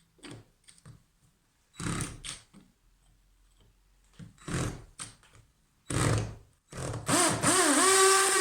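A few scattered knocks and clatters of tools being handled, then about seven seconds in a cordless drill fitted with a 6 mm masonry bit starts up. Its motor whine rises and then runs steadily.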